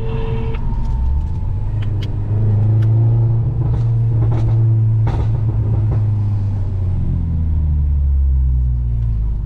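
Alfa Romeo Brera's engine heard from inside the cabin while driving, a steady low drone with road noise. The engine note climbs about two seconds in, holds, and eases off near the end.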